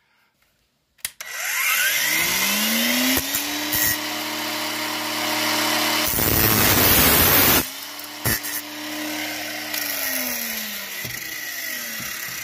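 Angle grinder switched on with a click about a second in. Its motor whine rises and holds steady. About six seconds in the disc bites into the rusted metal bracket in the wheel arch with loud grinding for about a second and a half. The motor dips, spins back up and winds down near the end.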